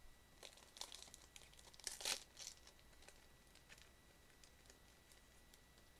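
Faint crinkling and tearing of a Japanese Pokémon card booster pack's plastic wrapper being ripped open by hand: a few short crackles, the loudest rip about two seconds in, then quieter handling.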